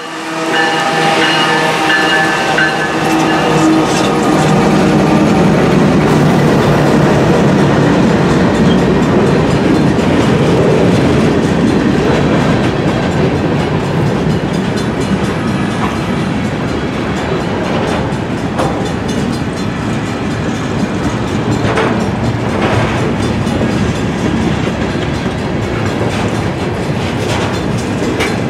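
Freight train passing a grade crossing at close range: the locomotive horn's last chord fades over the first couple of seconds, then a steady rumble and rattle of wheels on rail as covered hopper cars roll by, with a few sharper knocks now and then.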